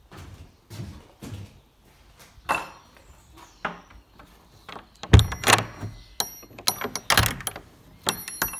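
A few soft wooden knocks, then a timber shed door shutting with a loud thunk about five seconds in. A galvanised barrel bolt on the door is then slid and rattled, giving a run of sharp metallic clicks with a light ringing.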